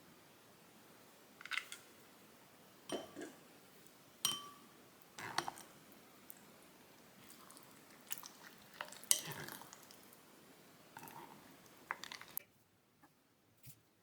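Scattered clicks, taps and short clattering scrapes of small hard objects being handled on a work surface during craft work, over a steady hiss from the camera's microphone that cuts off abruptly near the end.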